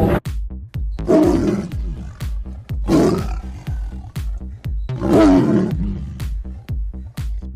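Three animal roars, each about a second long and spaced about two seconds apart, over background music with a steady beat.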